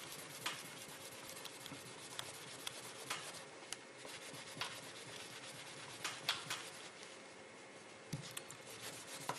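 Paper tissue rubbing and crinkling by hand over a cured metal-putty casting as it is worked off its mold, with scattered small clicks and taps.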